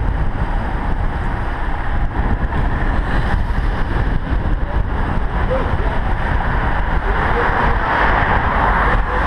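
Steady wind noise buffeting a helmet-mounted camera's microphone on a moving road bike, deep and loud, swelling a little near the end.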